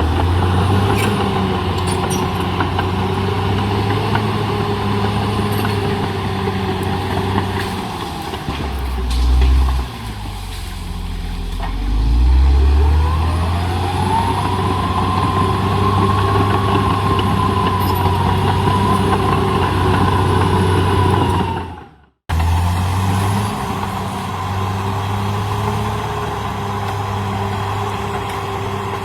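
CAT D6R XL bulldozer's diesel engine running under load. It dips about nine seconds in, then picks up again with a rising whine. The sound drops out briefly about two-thirds of the way through, then resumes.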